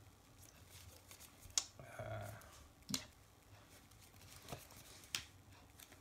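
Sleeved trading cards being handled on a playmat: cards are drawn from the deck and laid down, giving four short, sharp clicks and taps spread over a few seconds.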